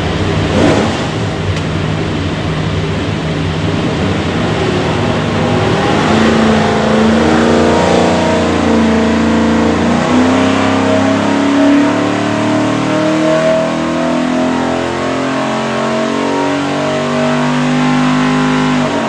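Ford 347 stroker small-block V8 with Borla stack injection running loud on an engine dyno, making a full-throttle power pull under load.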